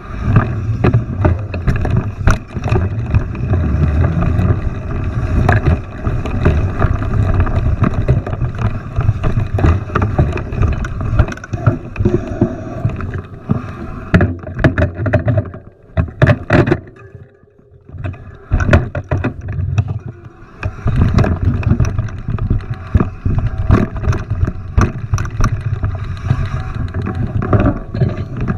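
Mountain bike riding a rough trail: wind buffeting the microphone over a steady rumble, with rapid rattles and knocks from the bike over the ground. It drops off briefly a little past the middle, then picks up again.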